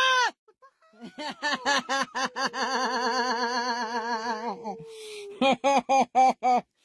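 A woman's short startled scream, followed by a long run of rapid, pulsing laughter. About five seconds in there is a breathy gasp, then more bursts of laughter.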